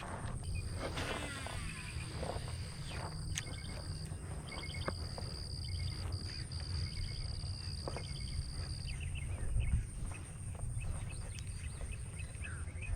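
Insects buzzing outdoors in steady high-pitched tones, one of them stopping about nine seconds in. Short chirps are scattered over it, with a low rumble underneath.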